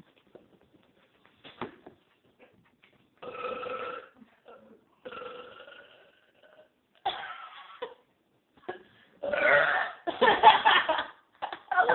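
Deliberate belching in a burping contest: a few separate short burps, then a longer, louder one near the end.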